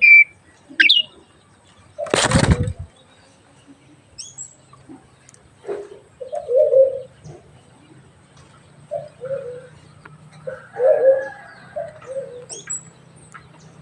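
Jalak (starling) calling: a couple of sharp rising whistled chirps at the start, a brief loud flutter like wings flapping about two seconds in, then low dove-like cooing notes repeated several times.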